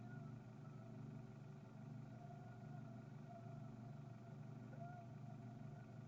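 Car engine idling with a faint, steady low hum.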